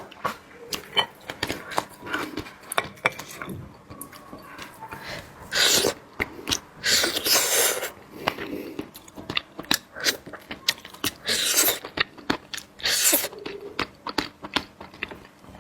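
A person eating seafood at close range: wet chewing and smacking with many small clicks, broken by several louder hissing slurps.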